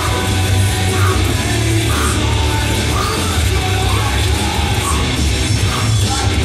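Loud heavy metal music with a dense, driving band sound and heavy bass.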